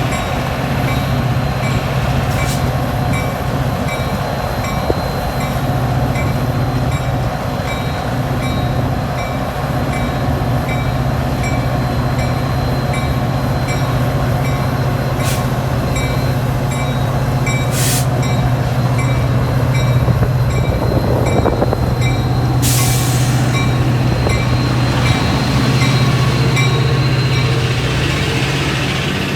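A train's diesel locomotive running with a steady low drone, with a faint regular high ticking about twice a second. About three-quarters of the way through a sudden loud hiss starts and fades away over several seconds.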